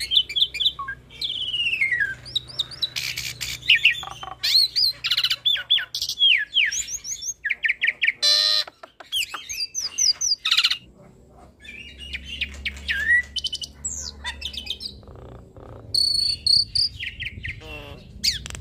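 Hybrid starling (Asian pied starling cross) singing a varied, busy song. It mixes clear whistles, notes that slide downward, fast chattering trills and a few harsh rasping bursts, with a short quieter stretch past the middle.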